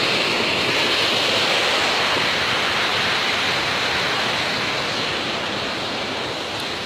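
Steady rush of a waterfall, a dense even roar of falling water that eases off slightly toward the end.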